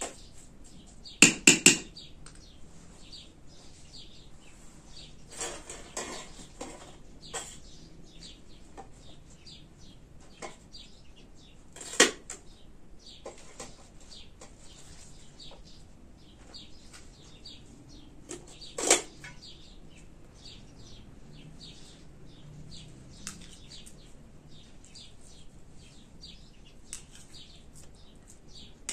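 A spoon clinking against steel cookware: three quick clinks about a second in, then single sharp clinks at about twelve and nineteen seconds. Softer handling and rustling sounds come around six seconds in.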